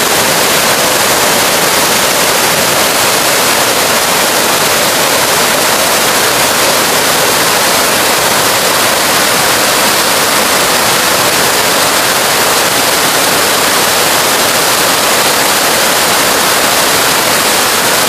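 Waterfall rushing: a loud, steady hiss of falling water that does not change.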